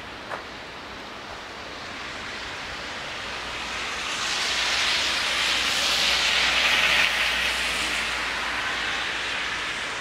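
A car passing on the street, its tyre hiss swelling, loudest about six to seven seconds in, then fading away.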